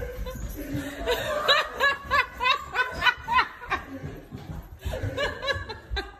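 A person laughing hard in quick repeated bursts, with low bumps from the phone being carried on the move.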